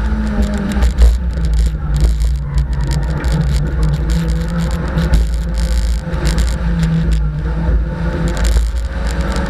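Fiat rally car's engine pulling hard on a tarmac sprint course, revs rising and falling as the driver accelerates and lifts off between the cones, easing briefly about a second in and again about six seconds in.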